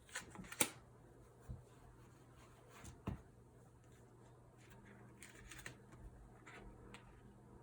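Faint clicks and taps, then a run of short scratchy strokes about five seconds in: a dry-erase marker being handled and drawn across a whiteboard.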